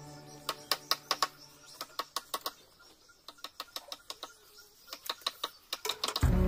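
Light, irregular clicks and taps of a pencil, measuring tape and steel straightedge being handled and marked against wooden planks, several a second with a short lull in the middle. Near the end loud background music starts.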